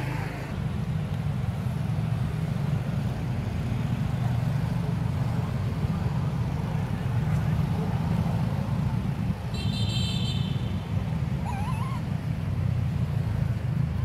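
Steady low outdoor rumble, with a short high chirp about ten seconds in and a brief wavering call a moment later.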